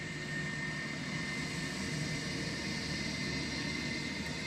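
A Condor twin-engine jet airliner's engines running at taxi power as it rolls along the runway: steady jet noise with a constant thin high whistle.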